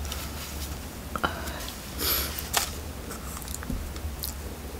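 Quiet eating sounds: a wooden spoon clicking and scraping in a plastic cup of chocolate mousse, with a short breathy sniff about two seconds in.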